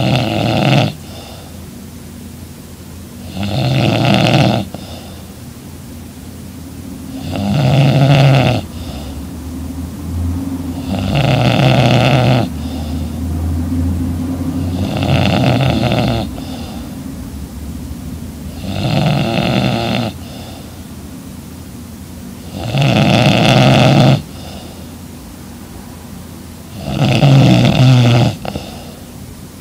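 A young woman snoring loudly in her sleep, one snore about every four seconds, eight in all, with quieter breathing between them.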